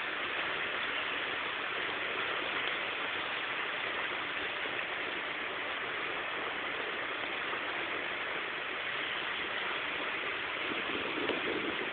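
Steady rushing noise, even throughout, with no engine note or knocks standing out.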